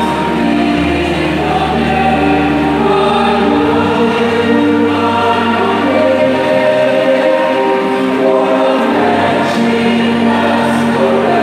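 A choir singing in harmony, holding long chords that shift every second or so.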